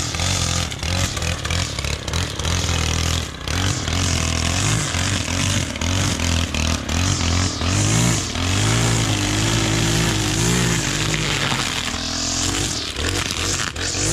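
Stihl KM 131 R KombiMotor's 4-MIX engine running a trimmer attachment under load, revving up and down as the line cuts through weeds and brush. The pitch swings repeatedly in the second half.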